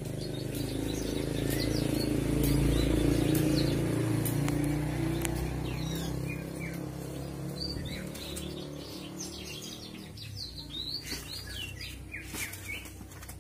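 A cloth cover rustling as it is pulled over a wire bird cage, then many short high chirps from a small bird, coming thickest near the end.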